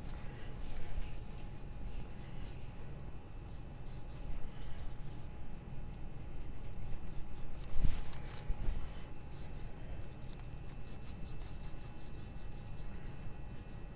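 Small paintbrush scrubbing and stroking paint onto a wooden sign: soft, scratchy rubbing strokes. A single thump about eight seconds in is the loudest moment.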